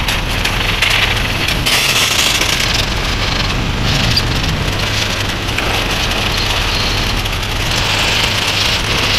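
Pressure washer jet spraying water onto a small air-cooled two-stroke engine: a loud, steady hiss of spray that swells and eases as the wand moves, over a steady low hum.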